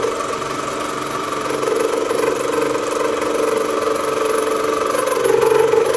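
2M112 drill press running as a milling machine, its cutter cutting a keyway into a rusty steel shaft. A steady drone of the motor and spindle with the cutter's grinding, growing a little louder about five seconds in.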